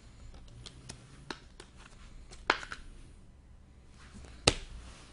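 Trading cards being handled on a table: light rustles and soft clicks of cards being slid and set down, with a sharper tap about two and a half seconds in and the loudest one near the end.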